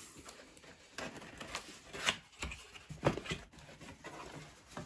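A cardboard box being opened by hand: its flaps pulled apart and folded back, with a string of short cardboard rustles and light knocks.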